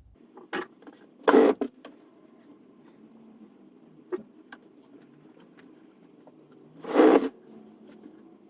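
Clamps being worked to hold wooden trim pieces in place: short, loud clacking bursts about a second and a half in and again near seven seconds, with a few lighter clicks between, over a low steady hum.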